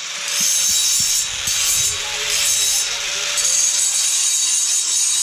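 Handheld angle grinder grinding a steel square-tube railing, throwing sparks. A steady motor whine runs under a hissing grind that swells and eases several times as the disc is pressed on and off the metal.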